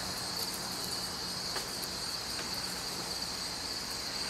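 Insects chirping in a steady, high-pitched chorus, with a couple of faint ticks.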